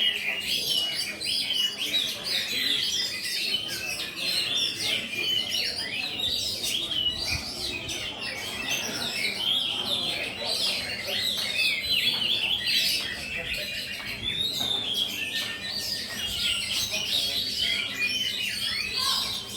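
Many caged songbirds singing at once in a dense, unbroken chorus of rapid chirps, trills and whistles.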